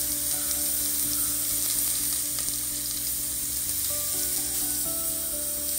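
Sliced onions sizzling in hot oil with a steady frying hiss, sautéed as the first step of a tempering.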